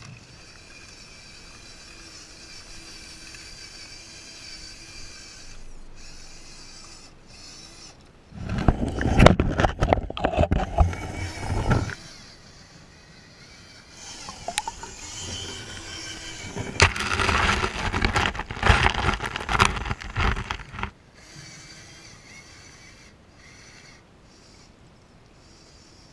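RC scale crawler driving through a shallow rocky stream. A faint steady motor whine comes first, then two loud, rough stretches of splashing and scraping over rocks, starting about eight and about seventeen seconds in.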